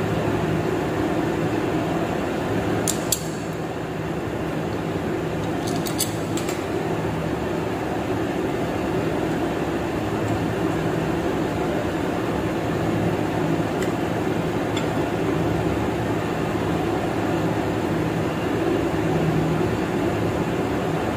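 Steady mechanical hum of a large workshop, with a few sharp metallic clinks as small steel parts are handled at a bench vise. The loudest clink comes about three seconds in and a short cluster follows around six seconds.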